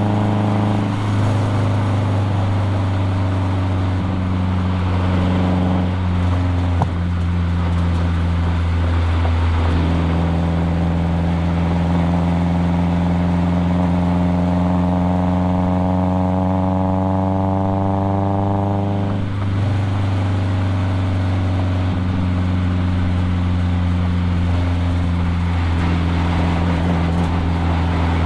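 Nissan KA24DE 2.4-litre four-cylinder engine of a 1997 240SX running under load. Its pitch climbs steadily over several seconds from about a third of the way in, then drops suddenly about two-thirds of the way through, as when the driver lifts or shifts.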